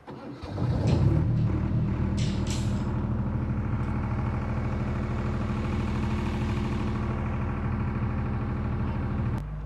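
An engine starts about half a second in and then runs steadily at an even pitch. There are a few short hissing bursts early on, and a click near the end.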